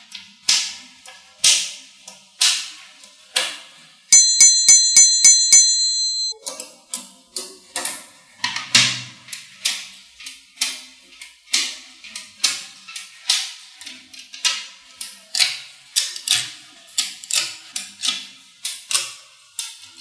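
Small magnetic balls clicking sharply as they snap onto a growing grid of balls, one to two clicks a second. About four seconds in, a quick, louder run of about eight bright ringing chime notes lasts around two seconds.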